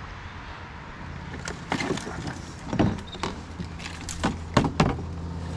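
A steady low motor hum that starts about a second in, drops away in the middle and comes back near the end, with a scattering of knocks and clunks of gear being handled.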